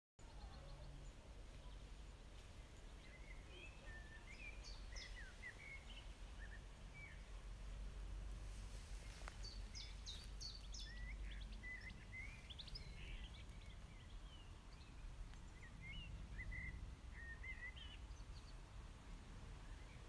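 Faint outdoor ambience of small birds chirping and trilling in short scattered phrases, over a low steady rumble.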